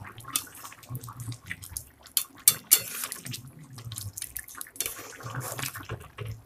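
Spoon stirring a thick chicken curry in a steel pot: wet sloshing of the gravy, with sharp clinks of the spoon against the pot, loudest a few times about two and a half seconds in.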